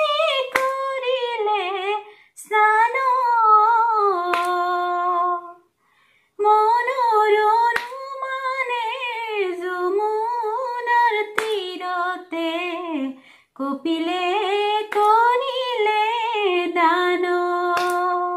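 A woman singing a dihanam, an Assamese devotional song, solo and unaccompanied, in long phrases with short breaks between them. A few sharp hand claps fall between the words.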